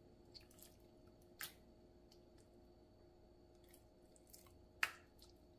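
Faint wet squishes of a hand turning raw chicken breasts in buttermilk marinade in a glass baking dish: a few soft, short sounds, the sharpest about five seconds in, over a faint steady hum.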